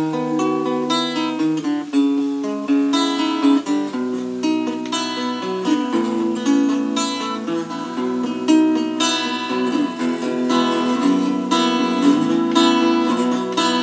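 Acoustic guitar being played: a melody of plucked notes ringing over chords, with occasional strums.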